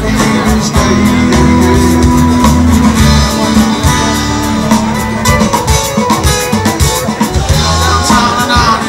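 Live rock band playing: drum kit, bass and electric and acoustic guitars in a loud instrumental passage.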